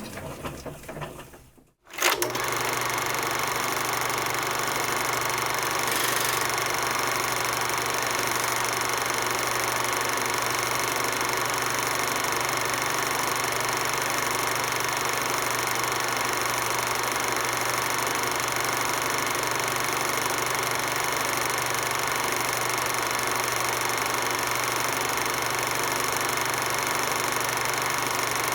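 Film projector slowing to a stop, its hum falling in pitch. After a moment's silence another film projector starts abruptly and runs steadily with a constant mechanical hum.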